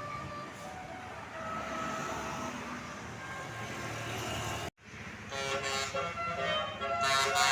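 Tour bus 'telolet basuri' musical air horn playing a tune of held notes that step from pitch to pitch, over road noise. About two-thirds of the way through the sound drops out for an instant, then the horn tune comes back louder.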